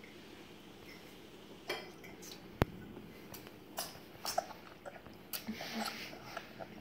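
A toddler slurping and sucking in strands of spaghetti, with scattered soft mouth smacks and one sharp click about two and a half seconds in.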